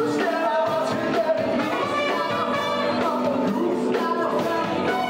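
Live band playing rock music, with a singer over guitar and band backing.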